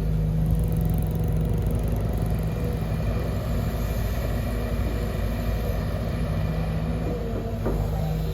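Sumitomo SH210 hydraulic excavator's diesel engine running steadily with a low rumble.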